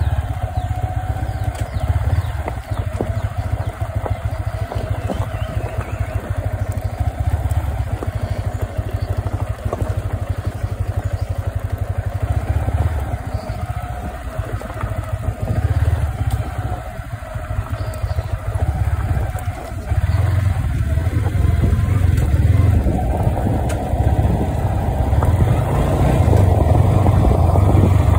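Yamaha R15 V3's 155 cc single-cylinder engine running under light throttle at low speed over a dirt trail, heard close up from the bike, with knocks and rattles from the rough ground. It grows louder from about two-thirds of the way in as the bike speeds up.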